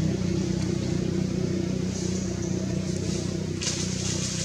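Steady, unchanging low hum of an engine running, like a motor vehicle idling, with a brief rustle about three and a half seconds in.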